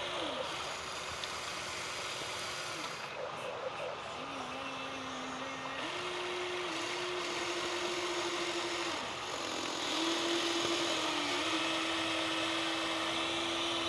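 Whine of an RC model's small electric motor, holding a steady pitch for a few seconds at a time and stepping up and down as it speeds up and slows, with short glides between the steps.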